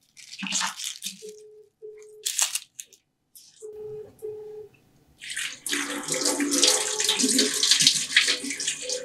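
Kitchen tap running water over tomatoes in a steel colander, a steady splashing that starts about five seconds in. Before it come a few short clatters of kitchen work and a low tone that sounds briefly in pairs.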